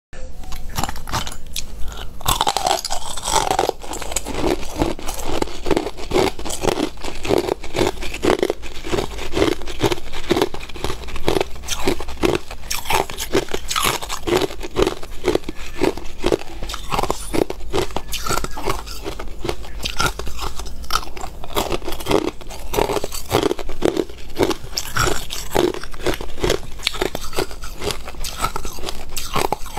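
Hard ice being bitten and chewed, a rapid run of loud crisp crunches, several a second.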